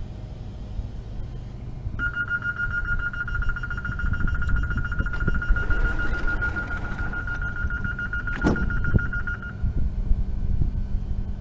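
Door-closing warning signal of a double-deck TER regional train: a rapid high-pitched beeping that starts about two seconds in and stops near the end. Near the end of the beeping the doors shut with a thud, over the low hum of the train standing at the platform.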